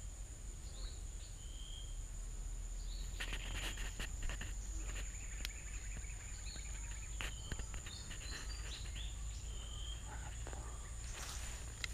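A steady high-pitched insect drone, with short bird chirps here and there and scattered clicks and rustles of close handling.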